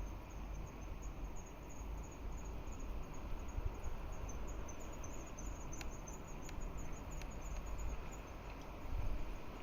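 Insects chirping in a high, rapid, steady pulse over a low, uneven rumble of wind on the microphone, with a few faint ticks past the middle.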